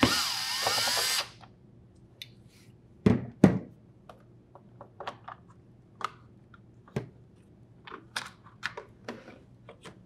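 Cordless drill driver whining for just over a second as it backs a Phillips screw out of the plastic display assembly case on top of a refrigerator door, its pitch sliding as it spins. Then scattered clicks and knocks, two loud ones about three seconds in, as the case is handled and lifted off.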